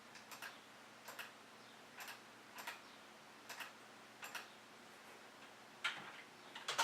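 Light clicking at a computer: a quick double click about every three quarters of a second, with a longer pause near the end.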